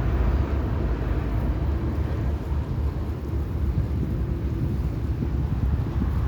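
Wind buffeting the microphone: a steady low rumble that keeps rising and falling with the gusts.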